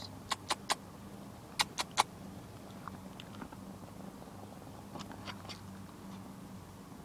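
Sharp clicks and taps right at the microphone, three quick ones, three more about a second later and a few fainter ticks near the middle, over a low steady hum. A Ragdoll kitten is nosing and pawing at the phone.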